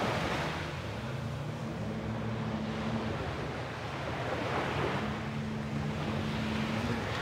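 Surf washing onto a sandy shore with wind on the microphone, and the low hum of a boat engine underneath, which fades in and out.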